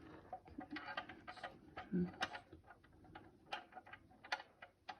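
Scattered light clicks and taps of small tools and metal parts being handled on an oil boiler burner, irregular rather than rhythmic, with a dull knock about two seconds in.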